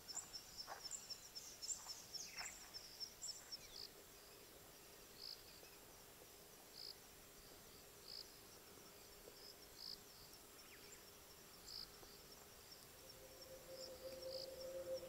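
Faint bush ambience of insects and birds: a scatter of short, high chirps at first, then a single high pip repeating about every second or so.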